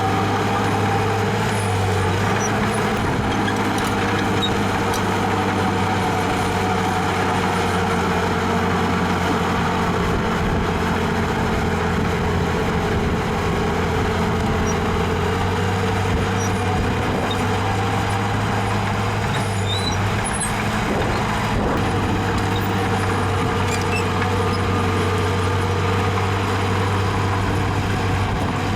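Heavy diesel engine of earthmoving machinery running steadily at a constant pitch.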